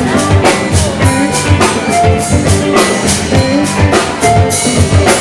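Live band playing an instrumental passage between sung lines: drum kit keeping a steady beat, with guitar.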